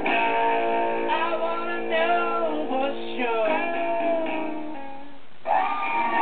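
Song with strummed guitar and singing played by an animated plush elephant head toy. The music stops briefly about five and a half seconds in, then starts again.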